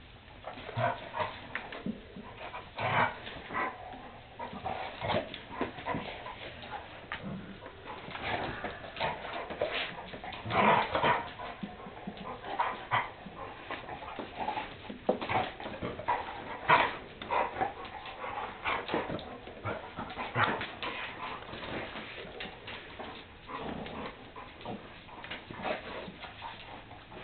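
Two large dogs play-fighting, with short, irregular dog vocalisations coming again and again throughout.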